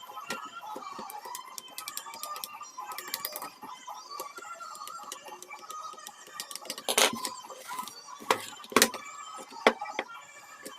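Irregular small clicks and taps, with several sharper knocks in the second half, as from tools and small plastic and electronic parts being handled during a repair on a workbench.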